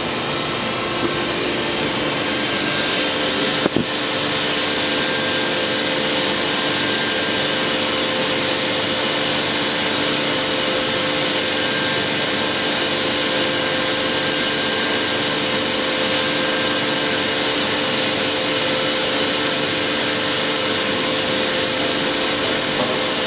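Vertical machining centre running under power: a steady whirring hiss with a few constant hum tones. A sharp click comes near four seconds in, after which the running noise is slightly louder.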